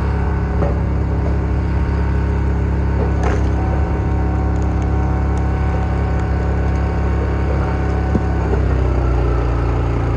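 Wolfe Ridge Pro X log splitter's engine running steadily while its 4-way wedge splits firewood, with a few sharp cracks of the wood breaking apart, the loudest about three seconds in. The engine note shifts about eight and a half seconds in.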